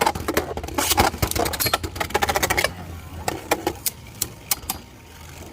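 Rapid clicking and rattling of plastic Beyblade tops and gear being handled, dense for about the first two and a half seconds, then a scattering of single clicks.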